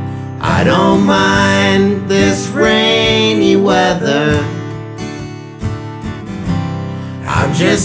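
Blues music: an acoustic guitar instrumental break, with a strummed accompaniment under lead notes that bend up and down in pitch.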